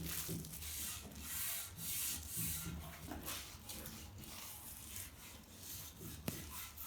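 Tack cloth being wiped over a primed metal moped frame to lift dust before painting: soft, repeated rubbing strokes, a couple a second.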